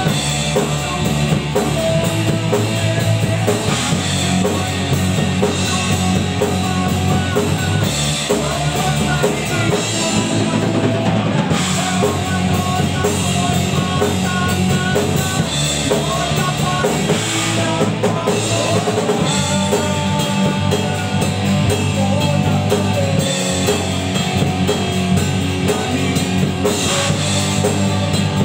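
A rock band playing live on a Pearl drum kit, electric guitar and electric bass guitar.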